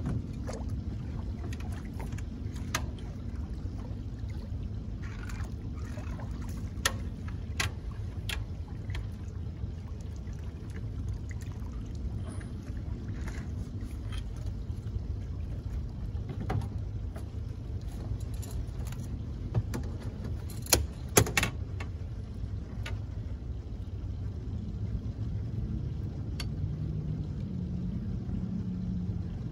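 Handling noises in a small boat: scattered clicks and knocks as a landing net and limb-line gear are worked, with two sharp knocks about two-thirds of the way through, over a steady low rumble.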